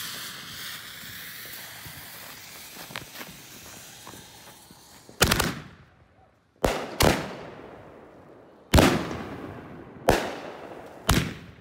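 Sky Bacon Viva Mexico firework cake: the lit fuse hisses steadily for about five seconds, then the cake starts firing its shots. Six sharp bangs come at uneven intervals, two of them close together, and each trails off briefly.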